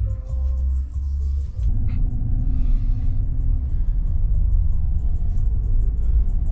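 Low road and engine rumble inside a moving vehicle's cab, with bass-heavy music playing over it with a quick, steady beat.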